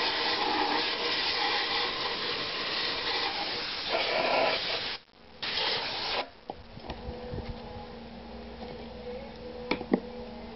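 Siphon-feed sandblast gun spraying air and sand onto Mercruiser 4.3 exhaust manifold parts to strip rust and scale: a steady hiss that cuts off about five seconds in, returns for one short burst, then stops. After that there is a low steady hum, and near the end a few light clicks and knocks.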